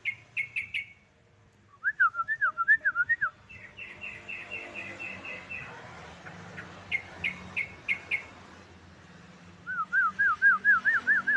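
Trucuk (yellow-vented bulbul) song used as a lure recording. It comes as short phrases of clear, quick notes: a run of rapid chips, a string of swooping notes, a fast rattling series, then a longer run of rising swoops near the end. A faint low hum sits underneath.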